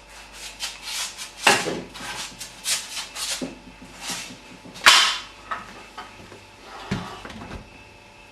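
Glass bottles clinking and knocking as they are handled and set down: a string of sharp, irregular knocks, the loudest about a second and a half in and about five seconds in.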